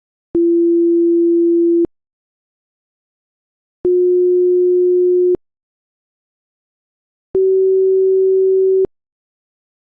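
Three pure electronic sine-wave tones, each about a second and a half long with silence between, each a little higher in pitch than the last, starting and stopping abruptly with a faint click.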